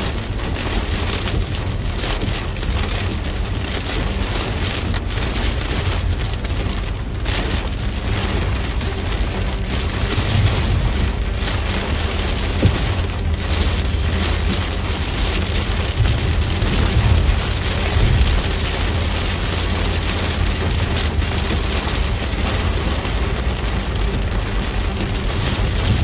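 Heavy rain falling on a moving car's roof and windshield, heard from inside the cabin, over a steady low rumble of the car on the wet road.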